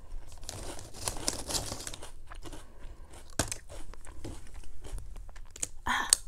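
Crinkling of a potato chip bag as a hand reaches in, then crunching and chewing of potato chips close to the microphone, with scattered sharp crackles.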